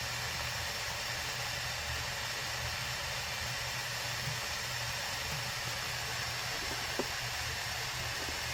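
Steady hiss with a low hum underneath, and a single sharp click about seven seconds in.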